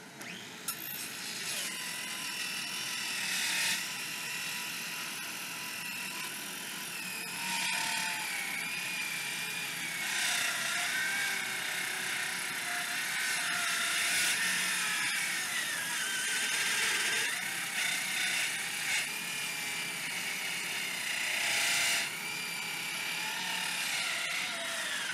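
Parkside cordless circular saw on a 4 Ah battery ripping through a thick timber beam with the blade fully buried. The motor whine wavers and sags in pitch as it labours under the load, over the steady noise of a dust-extraction vacuum. It starts with a click just under a second in, and the whine falls away at the very end.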